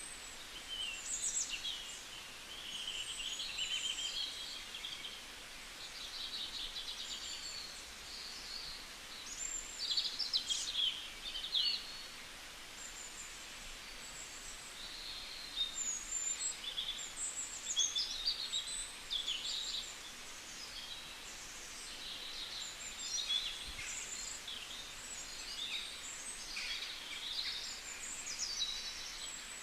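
Several songbirds singing and calling over one another: a continuous chorus of high trills, chirps and short gliding whistles, over a faint background hiss.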